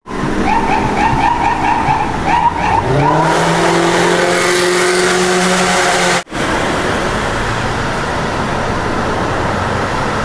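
Road traffic sounds at a highway crash scene: a rapidly pulsing pitched tone for about three seconds, then a steady low pitched tone, then, after a sudden cut about six seconds in, steady traffic noise.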